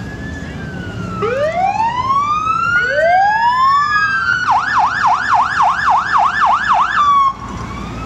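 Fire truck electronic sirens wailing in several overlapping rising and falling sweeps, then switching to a fast yelp of about three cycles a second for nearly three seconds before cutting off abruptly about seven seconds in.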